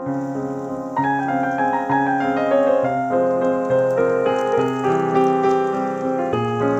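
Instrumental background music with a keyboard melody, growing fuller and louder about a second in.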